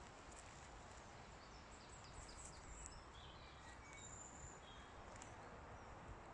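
Faint birdsong: a scatter of short high chirps and whistled notes, mostly in the middle stretch, over a steady outdoor background hiss.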